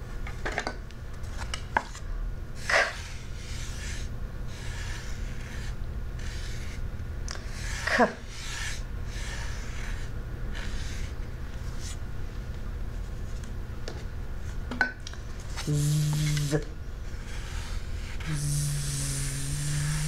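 Fingertips rubbing and tracing over sandpaper letter cards, with a few sharp knocks as cards are set down on the table. Near the end a woman's voice twice makes a drawn-out letter sound, the second a long buzzing "zzz" as she traces the letter z.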